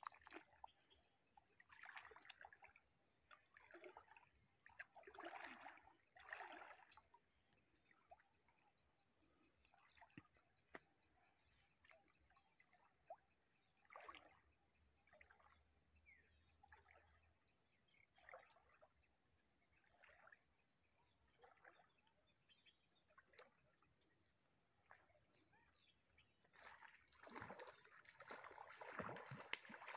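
Near silence, with faint scattered trickles and sloshes of pond water disturbed by a man wading in it, and a steady thin high whine. The water sounds grow louder in the last few seconds.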